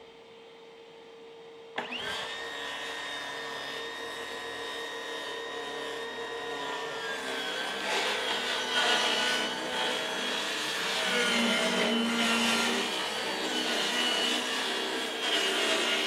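Hilti Nuron cordless 7 1/4-inch circular saw switching on with a high whine about two seconds in, then its blade cutting through a plywood sheet, the sound getting louder and rougher as it bites into the wood. A dust-extraction vacuum runs through a hose attached to the saw.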